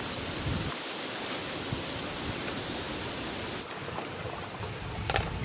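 Steady hiss of water flowing in a canal past a concrete culvert, with one sharp click about five seconds in.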